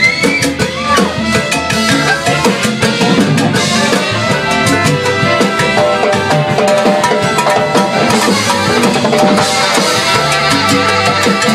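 Live band playing up-tempo Latin-style music, with drum kit and percussion driving a steady beat under a dense mix of instruments.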